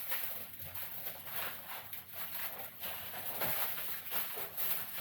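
Irregular knocks and rustles from handling briskets on a barbecue smoker as they are set onto a warming rack, several uneven strokes a second.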